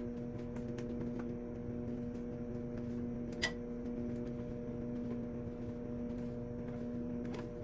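A steady machine hum, with a few light clicks and taps over it.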